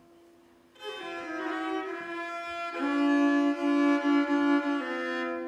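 Solo fiddle playing a traditional Norwegian folk tune, with two strings bowed together so that a drone note rings under the melody. The playing starts about a second in and grows louder a couple of seconds later.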